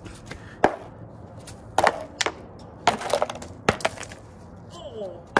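A small wooden toy mallet knocks on a gingerbread house several times, irregularly: about six sharp, short cracks as the gingerbread breaks.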